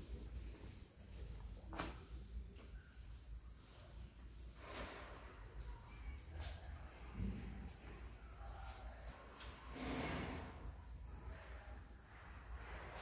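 Steady high-pitched insect chirring, a fast even pulsing, over a low background rumble, with a couple of faint soft swells of movement noise.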